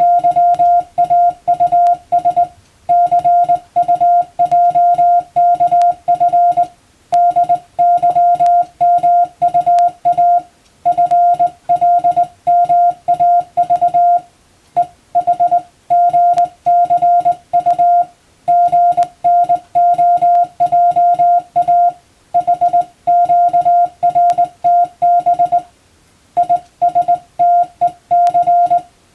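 Morse code (CW) sent as a single mid-pitched beeping tone keyed on and off in dots and dashes, in runs of characters separated by short pauses every few seconds: radiotelegraph receiving-practice text from a telegram practice book.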